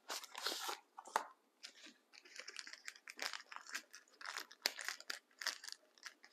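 Packaging of a camera protective case being opened by hand: a sharp scratchy rip about half a second in, then irregular rustling and small clicks as it is handled.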